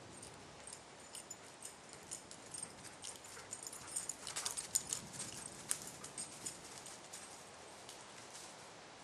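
Weimaraner running over dry fallen leaves: a quick patter of crunching footsteps that gets loudest as the dog passes close, about halfway through, then thins out.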